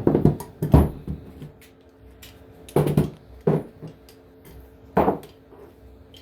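Hand tools being handled on the engine: about five sharp knocks and clunks, spaced irregularly, over a faint steady hum.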